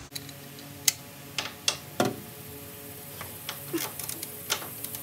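Torque wrench ratcheting in short, irregular strokes as the transmission mounting bolts are tightened: scattered sharp clicks, with a louder knock about two seconds in.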